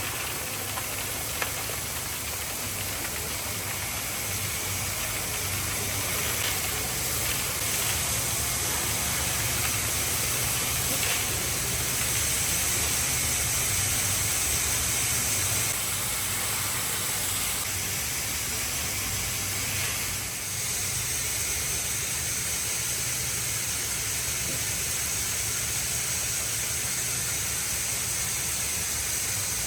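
Woodworking machine running steadily: an even hiss over a low, constant hum.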